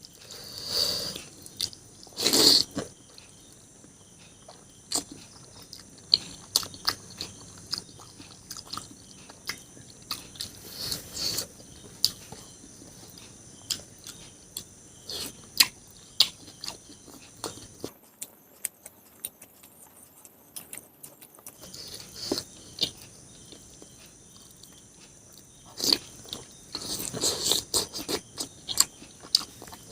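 A person eating close to the microphone: chewing and biting with irregular clicks and crunches, and a few louder bursts of eating noise.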